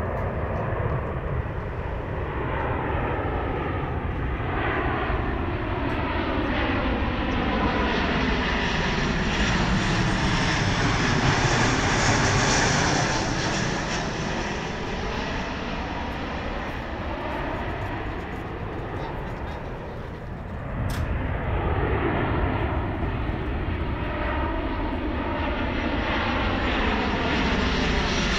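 Boeing 737-800 jet airliners on landing approach passing low overhead, their engines running with a steady rumble and a sweeping, phasing whoosh as each goes by. The first is loudest about halfway through the first twenty seconds and then eases off. After a sudden change, a second 737 can be heard approaching and growing louder near the end.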